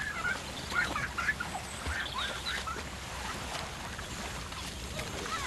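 Children's short, high, wavering cries and shouts mixed with water splashing as they play in a river, over a steady low hum.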